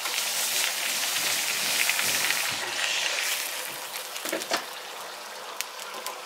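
Rice, onion and saffron broth sizzling in a paella pan over a gas burner while a spatula stirs through it. The sizzle is loudest for the first few seconds and then eases, with a few short clicks about four seconds in.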